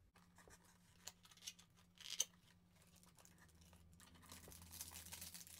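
Faint rustling and crinkling of tissue paper being lifted out of a cardboard toy box, with a few light taps of handling. The rustle grows a little louder in the last second and a half.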